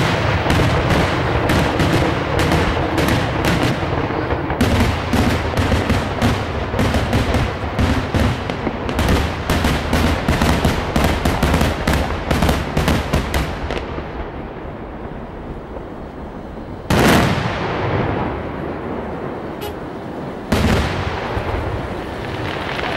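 Daytime fireworks display: aerial shells bursting with sharp bangs in rapid, crackling volleys, which thin out after about fourteen seconds. Two single heavy bangs follow near the end.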